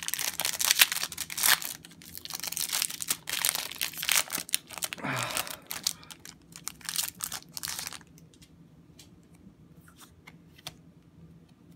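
Foil booster-pack wrapper crinkling and tearing as it is ripped open by hand, for about eight seconds. Then it goes quieter, with a few light clicks as the cards are handled.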